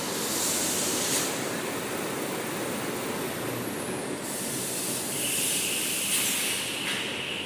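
Toilet paper production line machinery running: a steady mechanical din with bursts of hiss, and a steady high whine joining about five seconds in.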